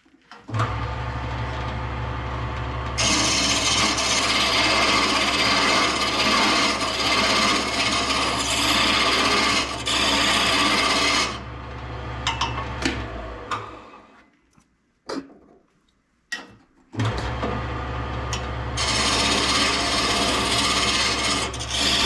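A woodworking power tool switched on, its motor humming, then working wood with a loud rasping noise for several seconds. It is switched off and winds down, then started again and put back to the wood near the end.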